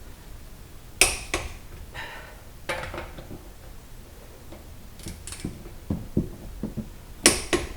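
Metal clicks and clinks of a torque wrench and socket working a wheel's lug bolts, with two sharp loud clicks about a second in and near the end and a run of softer knocks in between.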